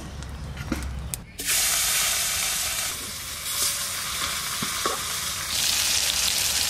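Fish steaks frying in hot mustard oil in a wok, sizzling. After a few light clicks, the loud sizzle starts suddenly about a second and a half in and swells again near the end.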